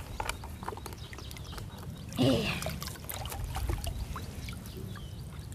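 Water trickling and dripping off a trammel net as it is hauled up out of a pond by hand, with many small splashes and drips. A short vocal sound comes about two seconds in.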